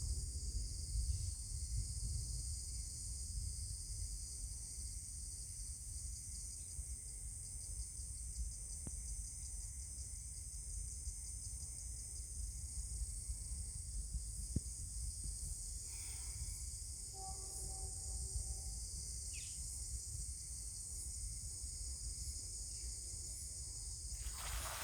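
Steady high-pitched chorus of insects shrilling continuously over a low rumble. A brief faint pitched call sounds about two-thirds of the way through.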